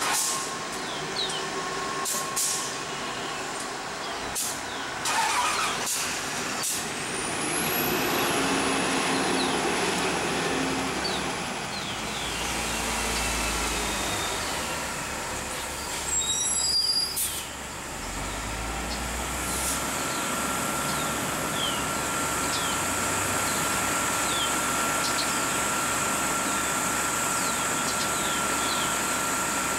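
Transit buses running at a station stop: engines running, with several sharp hisses of air brakes. A steady whine joins about twenty seconds in and holds.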